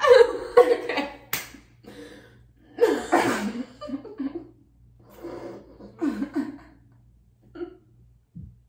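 Women's laughter in several bursts, dying away near the end, with one sharp click about a second and a half in.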